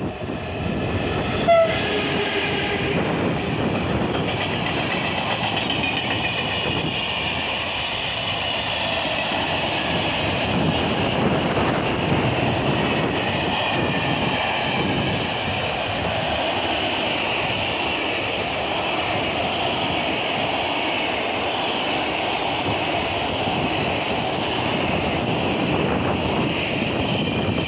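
Electric locomotive hauling a long freight train past at speed: a short horn blast about a second and a half in, then a continuous rumble and clatter of wagons rolling by, with a wavering high-pitched squeal on top.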